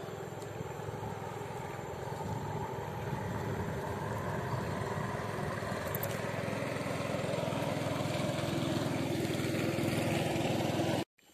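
Small boat engine running steadily, slowly growing louder, then cut off suddenly near the end.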